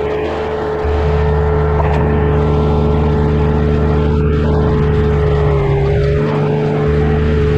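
Diesel engine of a compact earthmoving machine running steadily at working speed, with a steady high whine over the engine drone. The low drone dips briefly near the start and again about six seconds in.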